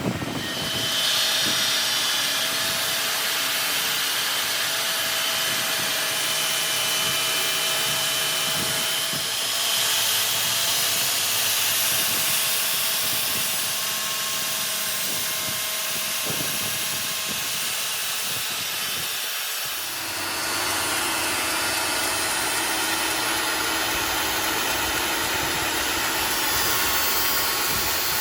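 A power tool running steadily: a continuous loud hiss with a faint whine. It dips briefly about twenty seconds in, then carries on with a slightly different pitch.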